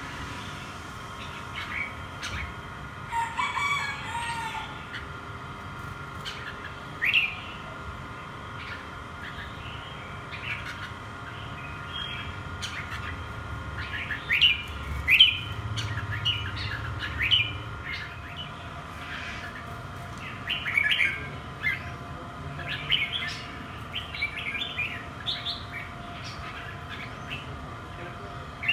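Red-whiskered bulbuls giving short, scattered chirps and chattering calls, some singly and some in quick clusters, with a few soft clicks between them.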